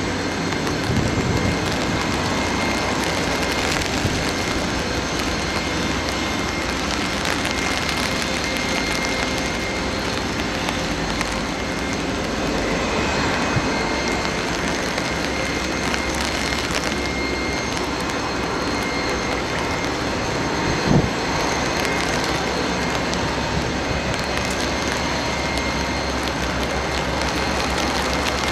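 Boeing 747-400 during pushback: a steady jet whine over a broad rumble and hiss, with one short knock about 21 seconds in.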